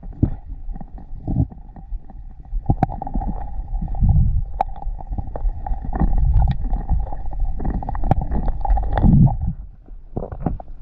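Muffled water sound heard through a camera's waterproof housing during a dive: low rumbling surges of moving water, with many sharp clicks and knocks and a faint steady hum.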